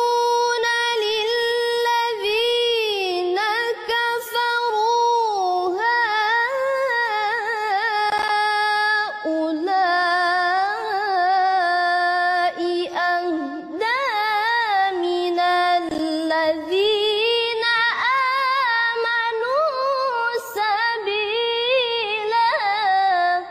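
A young woman reciting the Quran in Arabic in the melodic contest style (tilawah). Her single unaccompanied voice holds long, ornamented notes that waver up and down in pitch, with a few short breaks for breath.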